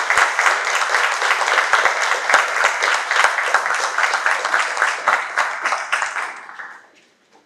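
A small audience applauding, a dense patter of hand claps that thins out and stops about a second before the end.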